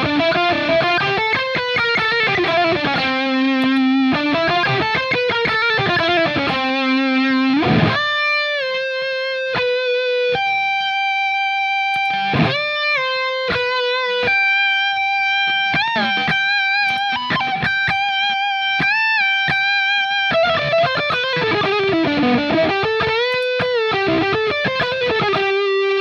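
Heavily distorted electric guitar playing a lead solo, run through stacked overdrive and distortion pedals into an MXR Smart Gate noise gate on its full setting. It opens with quick phrases, has long held notes with bends and vibrato in the middle, and returns to quicker phrases near the end.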